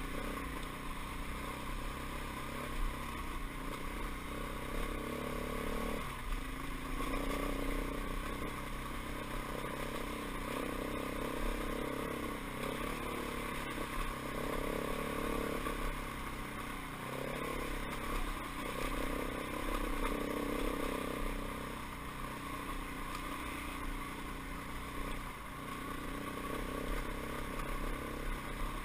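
Dirt bike engine running while riding a rough trail, its note rising and falling every couple of seconds with the throttle.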